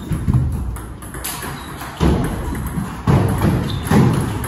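Table tennis rally: the ball clicking off the bats and the table, with several heavy thuds of the players' feet on the floor as they move.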